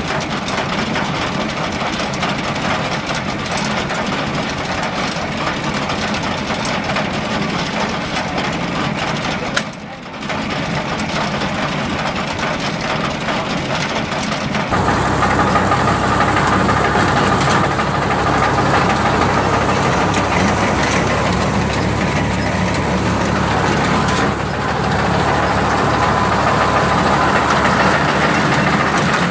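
New Holland Fiat 480 tractor's three-cylinder diesel engine running steadily. About halfway in the sound steps up and gets fuller as the tractor moves off with its front-mounted reaper binder working, cutting wheat.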